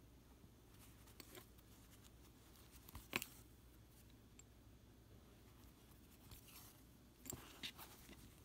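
Near silence with faint rustles and clicks of cotton fabric, needle and thread being handled during hand stitching. The loudest is a sharp click about three seconds in, with a couple more near the end.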